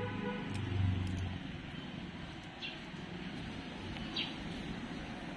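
A small bird chirping twice, short high chirps about a second and a half apart, over a steady low background rumble that swells into a low hum about a second in.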